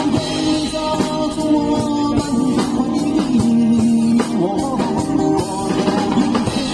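Live pop song performed by street musicians: a man singing a melody over a strummed acoustic guitar, with a drum kit keeping the beat.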